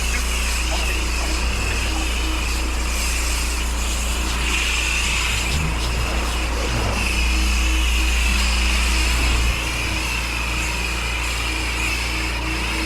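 Fuel-engined pressure washer running steadily, with the constant hiss of its high-pressure water jet. The engine drone grows louder for a couple of seconds midway, then settles back.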